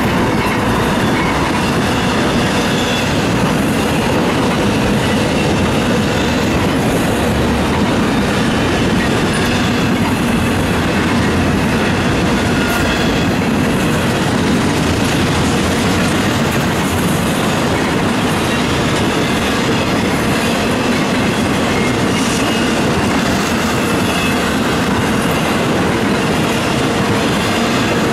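Long string of empty intermodal flat and well cars on a freight train rolling past at speed: a loud, steady rattle and clatter of wheels and empty car bodies on the rails, with faint thin wheel squeals now and then.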